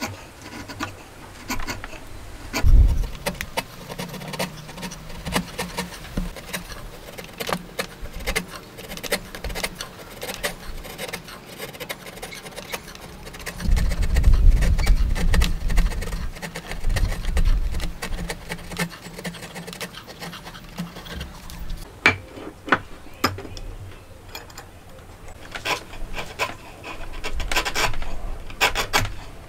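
Steel hand chisel paring hardwood: repeated short scraping shaves as the blade is pushed across the grain. A few dull low knocks and rumbles come in around three seconds and again near the middle.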